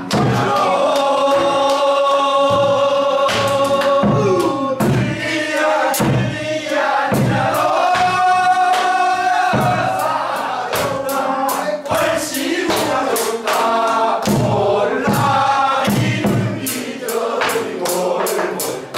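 A mixed group chorus singing a Korean folk song (minyo) in unison, holding long notes, to steady strokes on a buk barrel drum and hand clapping.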